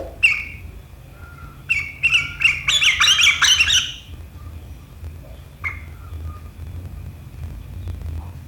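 Sooty-headed bulbul (kutilang) calling: a few sharp short calls, then a rapid, harsh chattering burst a couple of seconds in, and another short call near the end, over a steady low hum.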